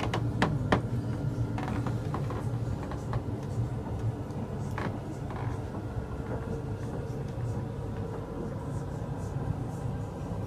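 A steady low mechanical hum, with two sharp knocks within the first second and a fainter one about five seconds in.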